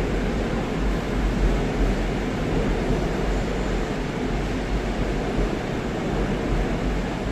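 Steady low hum and rumble of a Seoul Line 4 4000-series subway train with GTO VVVF drive, with no distinct clicks or squeals.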